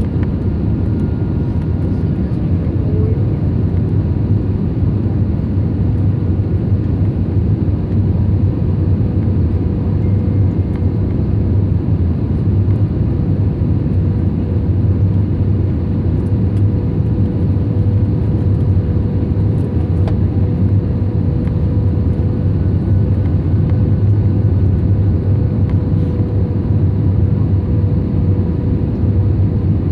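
Steady cabin noise inside an Airbus A320 airliner descending on approach to land: a loud, even, low roar of engines and airflow with a faint steady hum running through it.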